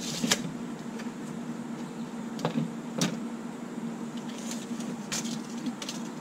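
Steady low hum, with a few sharp light clicks and knocks from PVC pipe being handled and measured on a wooden workbench.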